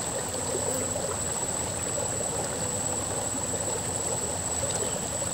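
Shallow river flowing over gravel and pebbles: a steady rush of running water. A thin, steady high-pitched whine sits over it.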